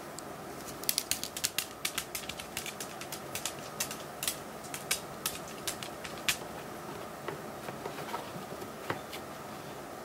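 Small dog's claws clicking irregularly on a hard floor as a Chihuahua walks into a plastic pet carrier, quick and frequent over the first half, thinning to a few clicks later, over a steady hiss.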